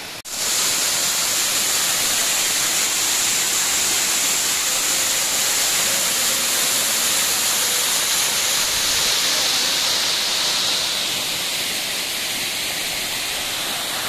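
Waterfall pouring onto rock: a steady rush of falling water, a little softer from about eleven seconds in.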